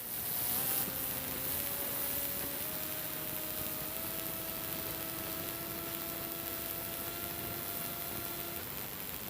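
Homemade plywood CNC machine cutting plastic: it starts up abruptly and runs with a steady hiss. Over it, whining tones shift in pitch in several small steps as the machine moves, then stop shortly before the end.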